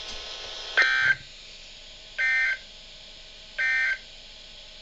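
Three short, identical bursts of Emergency Alert System SAME digital data tones, about a second and a half apart. This is the End of Message code that closes the alert broadcast.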